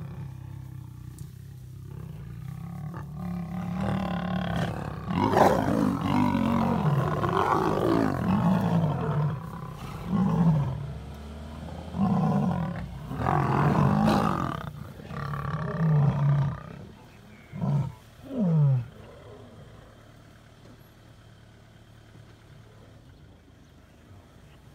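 Lions roaring: a long bout of deep roars that builds over the first few seconds, swells into full roaring, then breaks into a series of short, deep grunts that stop about 19 seconds in. This is the territorial roaring of a pride.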